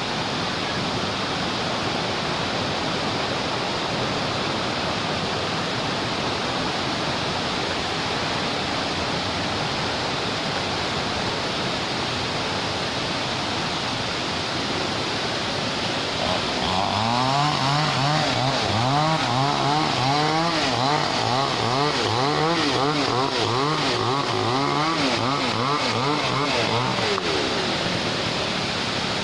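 Waterfall rushing steadily. About halfway through, a pitched whine joins for roughly ten seconds, its pitch rising and falling over and over about twice a second.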